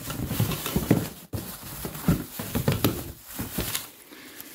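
Rummaging by hand in a cardboard box of old parts: plastic bags and crumpled newspaper rustling, with irregular knocks and clicks as the parts are moved.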